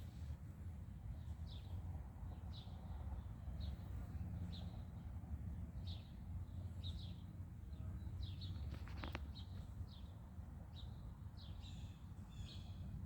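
A bird's short chirps, repeated about once a second and coming quicker near the end, over a steady low rumble.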